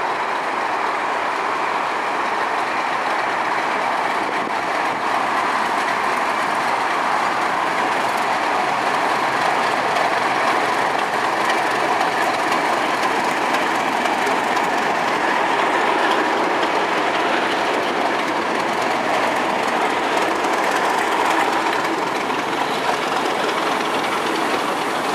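Class 31 diesel locomotives hauling the dead steam locomotive Tornado on the rails: steady wheel-on-rail running noise with a clickety-clack, continuing for the whole stretch.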